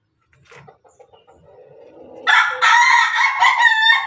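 A rooster crowing loudly: one long crow that begins a little over two seconds in.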